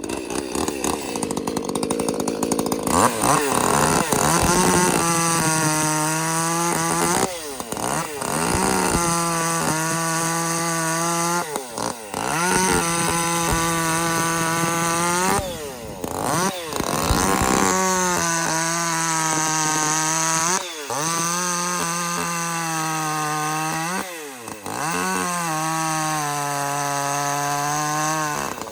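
Ported Echo CS-310 chainsaw's small two-stroke engine held at high revs in long steady bursts, the revs dropping sharply and briefly about five times between them.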